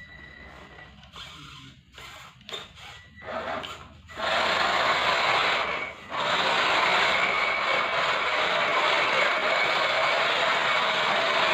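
Radio-controlled model truck driving and drifting: a few short scrapes, then from about four seconds in a steady scraping, whirring noise of tyres and drivetrain with a faint whine in it, broken off briefly near six seconds.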